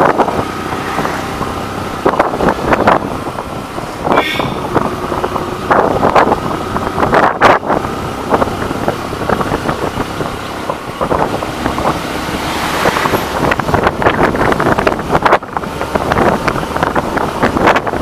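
Motorcycle engine running steadily as the bike climbs a hill road, with wind buffeting the microphone in uneven gusts.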